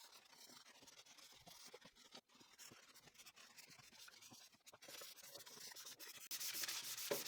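Faint hand sanding of pine wood with a sheet of sandpaper: soft rubbing, scratchy strokes that grow louder and steadier over the last two seconds or so.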